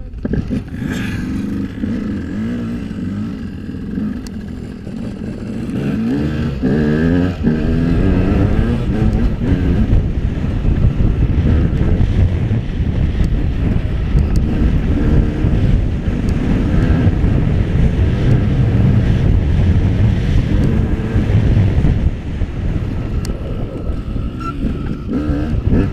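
Enduro dirt bike engine revving under way, its pitch rising and falling in quick steps about six seconds in, then running loud and steady as the bike rides over rough ground, with wind buffeting the bike-mounted microphone.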